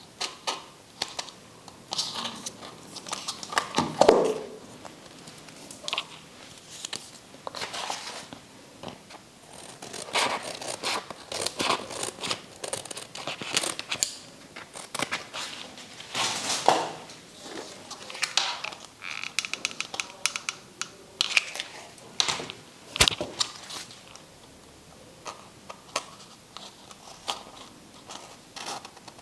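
Craft paper and a plastic cup being handled: irregular crinkling and rustling with small clicks, and one sharp click late on.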